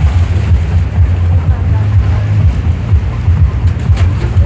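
Wind buffeting the microphone as a heavy, uneven low rumble, over the wash of choppy river water.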